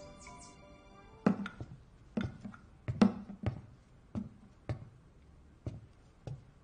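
Dishes being set down on a table, a series of about eight short knocks at uneven intervals.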